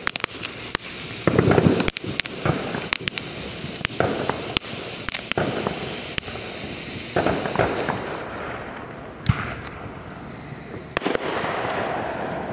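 Ground fountain firework burning with a steady hiss and a rapid stream of sharp crackles and pops. It dies down about eight seconds in, leaving a few scattered pops.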